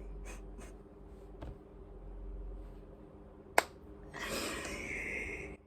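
Quiet handling of a paper album photobook: a few faint clicks, then one sharp click about three and a half seconds in, followed near the end by a breathy hiss lasting over a second.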